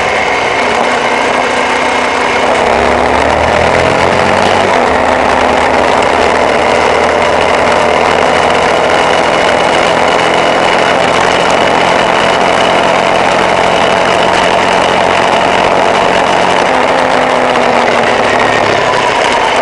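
Off-road vehicle engine running loud and steady while driving, with the engine pitch sliding up and down near the start and again near the end.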